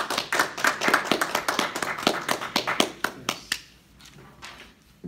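A small audience clapping in a small room, the applause thinning out and stopping about three and a half seconds in.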